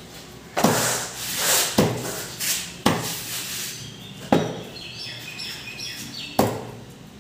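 A cleaver chopping through a whole fish into steaks on a wooden chopping block: five heavy chops, one to two seconds apart.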